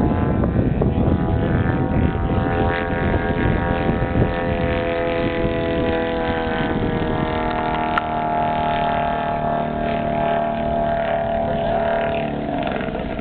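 3W-275 gasoline engine of a 50%-scale Edge RC aerobatic plane running in flight, a steady drone whose pitch sinks slowly over the seconds.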